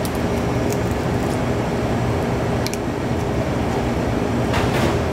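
Steady hum of kitchen ventilation, with a few faint ticks as a knife cuts along a sheepshead's back between the scales.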